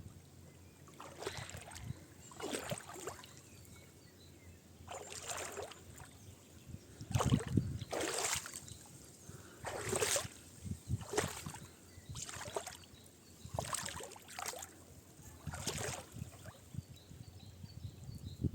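Water splashing in a series of separate swishes, about one every second or two, each lasting about half a second.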